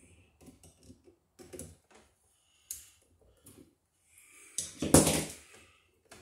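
Small clicks and light knocks of pliers and stripped electrical wire being handled, then a single louder, brief rush of noise about five seconds in.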